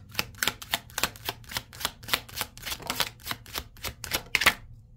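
A tarot deck being shuffled by hand: a quick run of crisp card clicks, about four to five a second, that stops shortly before the end.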